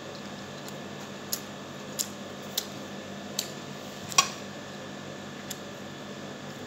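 Eating sounds over a steady background hum: about six short, sharp clicks and smacks from chewing and from fingers picking rice off a plate, the loudest a little past four seconds in.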